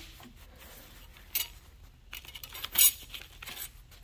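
A paper towel wiping a steel engine cam plate, and the plate and a steel ruler clinking and scraping on a steel workbench in a few short bursts.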